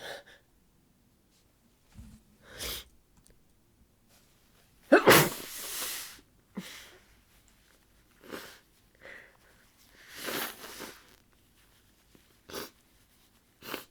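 A woman with a head cold sneezing into a tissue about five seconds in, the loudest sound, with a second long breath-out around ten seconds and short congested sniffles before and after.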